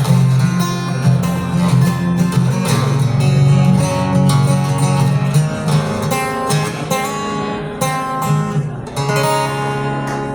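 Acoustic guitar strummed through the closing instrumental bars of a slow country song, steady chords with no singing.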